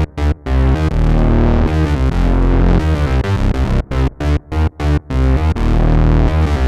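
Arturia MatrixBrute analog synthesizer playing a deep, bass-heavy patch. Short chopped notes stutter with gaps near the start and again about four seconds in, with longer held notes between them.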